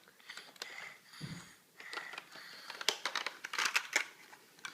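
Faint rustling and scattered light clicks of small toys being handled and put into a basket.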